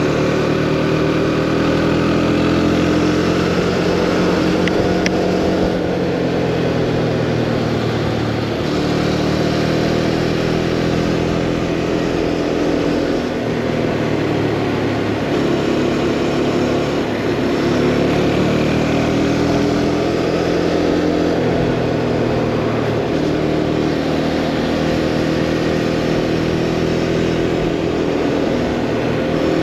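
Motorcycle engine under way, its revs climbing and falling several times as the rider opens and closes the throttle through the bends.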